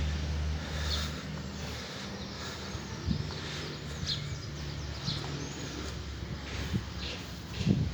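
Birds chirping, a few short high calls spread out, over quiet outdoor background noise; a low steady hum fades out about a second in.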